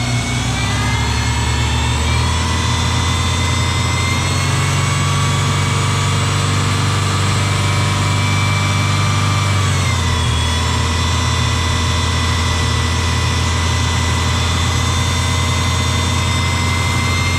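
Subaru EJ22 flat-four engine idling just after its first start following a head gasket job, with a steady high whine over the engine note that is likened to a supercharger. The engine speed and the whine drop in pitch about ten seconds in.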